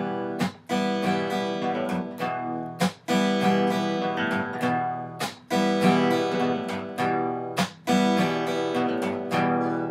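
Acoustic guitar played alone, chords strummed with sharp percussive strokes that ring on between them.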